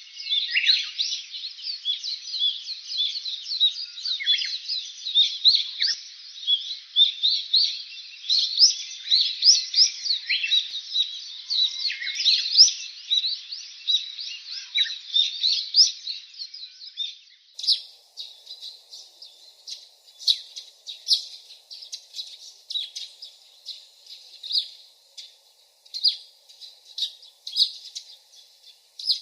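Many small birds chirping and twittering together in a dense, busy chorus. About seventeen seconds in, the sound changes abruptly to sparser, sharper, higher chirps.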